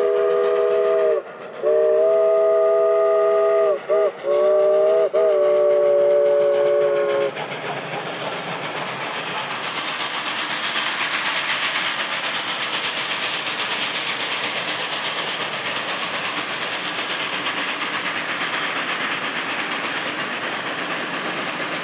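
Steam whistle of 2-8-0 steam locomotive No. 734: a chime chord of several close tones, blown in two long blasts, a quick short one and a final long blast, the pattern of a grade-crossing signal. It stops about seven seconds in and gives way to the steady rush of the working locomotive's exhaust and the rolling train.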